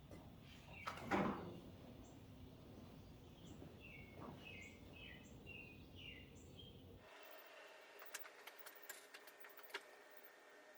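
Faint background with a bird chirping repeatedly in short, falling notes, a brief loud noise about a second in, and scattered light clicks after the low hum drops away suddenly.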